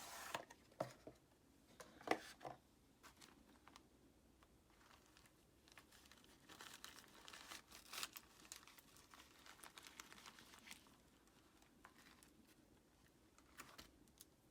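Faint crinkling and tearing of product packaging being opened by hand, with scattered small clicks and knocks, a few sharper ones in the first couple of seconds.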